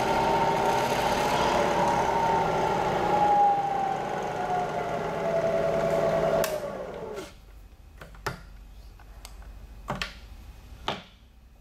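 A Bridgeport Series II Special milling machine's 2 hp variable-speed head running quietly, its pitch sliding as the speed is changed. About six and a half seconds in it winds down to a stop, and a few sharp clicks follow as the levers on the head are handled.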